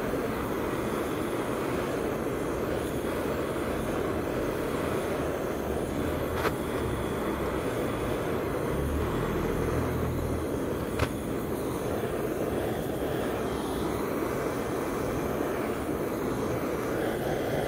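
Handheld butane torch flame burning with a steady rushing hiss as it scorches pine wood slices, with two sharp clicks about six and a half and eleven seconds in.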